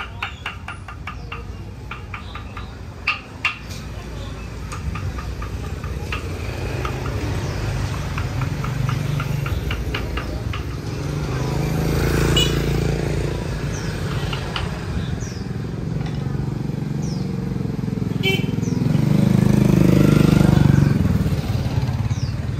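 Street ambience with motorbikes passing, their engines swelling louder about halfway through and again near the end, over scattered voices. A run of rapid clicking comes in the first few seconds.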